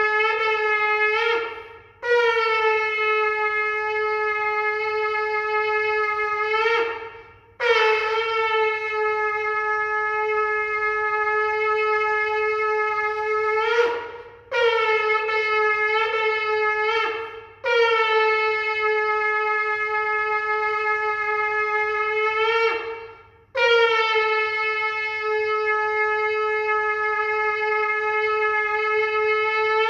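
Shofar (ram's horn) sounding a series of long, steady held blasts of about three to six seconds each, with short breaks for breath between them.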